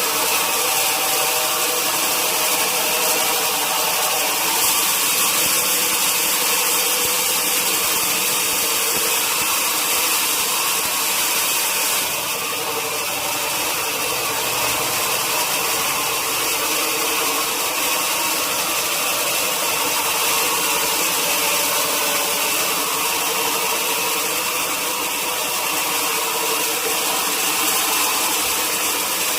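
Sawmill machinery running steadily: a loud, even mechanical noise with a constant hum, dipping slightly about twelve seconds in.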